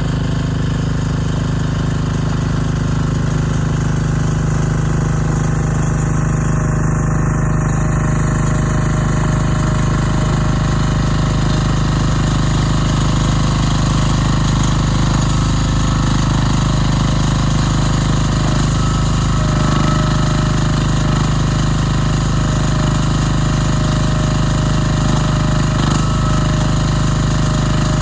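Vario Tech XN08 micro excavator's small engine running steadily at an even speed.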